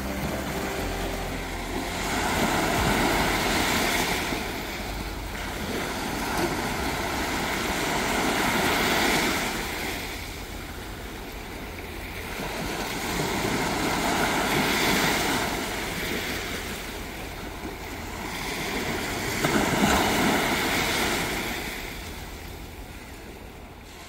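Small Baltic Sea waves washing up a sandy beach, the surf swelling and easing every few seconds, with the biggest surge about twenty seconds in. The sound fades out near the end.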